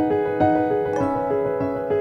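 Background music: a keyboard playing a gentle repeating pattern of notes, about three a second.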